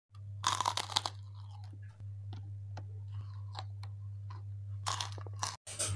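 Biting into a crispy kerupuk cracker and chewing it with loud crackling crunches, a cluster about half a second in and another near the end, with quieter chewing clicks between. A steady low hum runs underneath.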